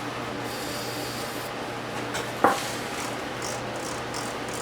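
Nearly empty aerosol can of contact cleaner spraying in short, sputtering hisses, with one sharp knock about two and a half seconds in.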